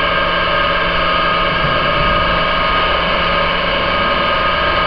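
Steady machine hum of a laboratory flume running, with several high whining tones and a low hum over a noise of flowing water, from the flume's circulating pump and the water in the channel.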